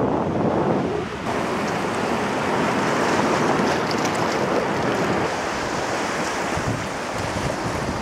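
Ocean surf washing on the shore, with wind buffeting the microphone: a steady rushing noise.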